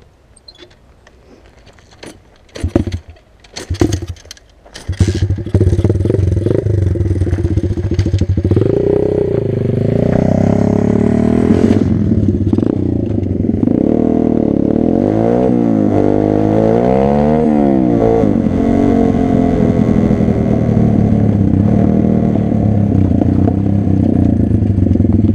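125 cc pit bike's single-cylinder engine: a few short bursts, then it catches about five seconds in and keeps running. It is revved up and down several times, twice in quick succession near the middle, then settles to a steady run.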